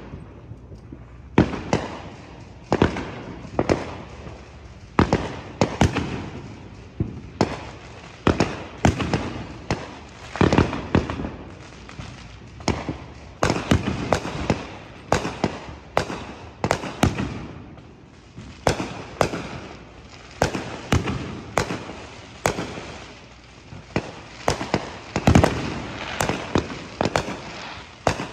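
Fireworks going off across a neighbourhood: an irregular, continuous string of sharp bangs, sometimes several a second, many with an echoing tail, some louder and nearer than others.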